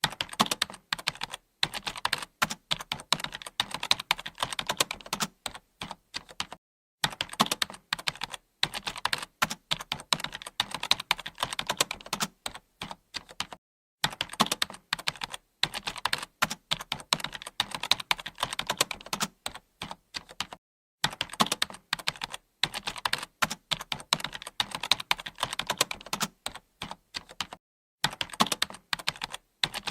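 Computer keyboard being typed on in fast, continuous runs of key clicks, with short breaks about every seven seconds.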